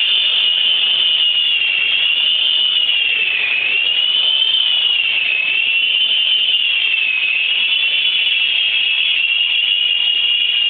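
Mini Cobra RC helicopter in flight: a steady high-pitched whine from its small electric motors and rotors that wavers, dipping in pitch every second or two.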